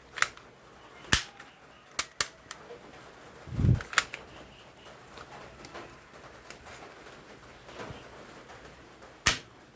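Sharp plastic clicks and snaps of a toy shotgun being worked and fired, about six spread out with gaps between them. A low thump comes about three and a half seconds in.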